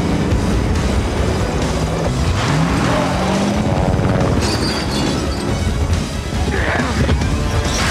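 Action-film soundtrack: a dramatic music score over helicopter and truck engine noise, with booming crashes.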